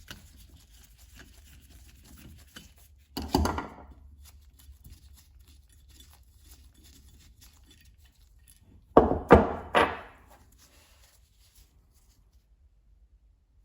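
Hand tools and small metal parts handled on a workbench: light clicks and rustling, a clattering knock about three seconds in, and a quick run of three loud knocks near the ten-second mark.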